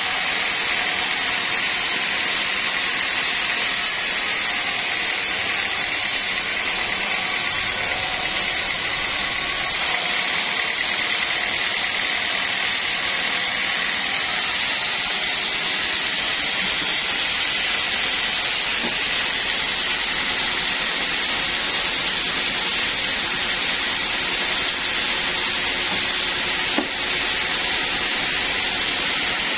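Band sawmill running as its blade saws through a teak log: a steady hiss with a faint high whine. There is one light knock near the end.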